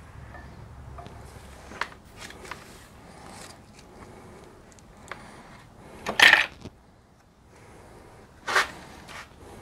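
Metal objects being handled: scattered light clicks and scrapes, with two louder clanks about six and eight and a half seconds in.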